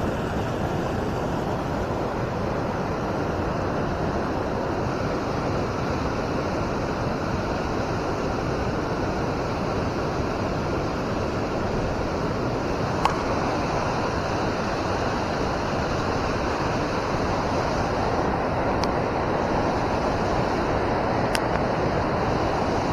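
River water rushing steadily around the wading angler, with one short click about thirteen seconds in.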